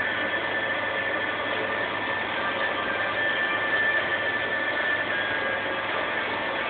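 Fish tug's engine running steadily underway, with the rush of the bow wave and spray along the hull, heard from inside the wheelhouse; a few steady whining tones sit over the noise.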